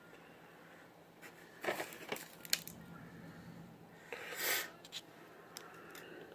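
Handling sounds at a workbench: a few light clicks and knocks between about one and two and a half seconds in, then a short rustling scrape about four seconds in.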